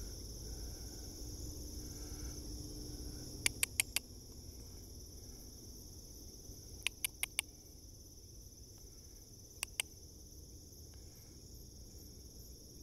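Steady, shrill insect chorus in two high bands, broken by three quick runs of sharp ticks: four about three and a half seconds in, four more about seven seconds in, and two near ten seconds.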